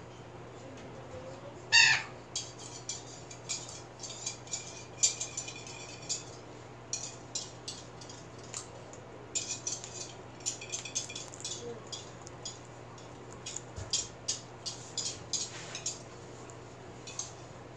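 Sun conure in a wire cage biting and shredding leafy greens and clambering about, making many small irregular clicks and crackles of beak and feet on leaf, toys and wire, with one short loud chirp about two seconds in.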